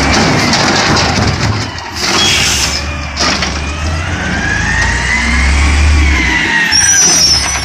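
Diesel engine of an automated side-loader garbage truck running as it drives up to the curb, with a whine that rises and then falls in pitch over the second half. A short high squeal near the end.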